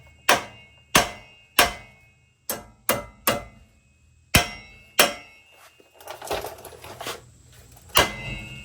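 Hammer strikes ringing on steel at the truck's outer tie rod end, the nut left on the stud, to break its tapered stud loose from the steering knuckle. About eight sharp blows come in the first five seconds, then a short stretch of softer clatter, then one more blow near the end.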